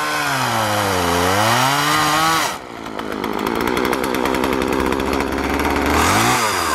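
Two-stroke gasoline chainsaw running and cutting through the trunk of a small Christmas tree at its base. The engine pitch sags during the first couple of seconds and climbs back as the chain bites, then settles into a steady rasping cut.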